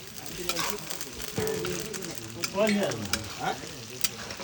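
Mutton bhutan sizzling as it fries in a pan, with a spatula stirring it and clicking against the pan now and then.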